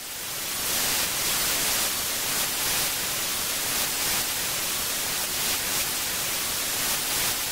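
Analog TV static hiss: a steady rushing noise that swells up over the first second and then holds level.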